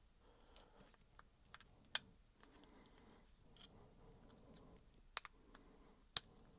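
Faint handling of a DJI Osmo Action 5 Pro action camera and its plastic clip-on mount, with a few sharp plastic clicks about two, five and six seconds in as the mount is pushed onto the camera.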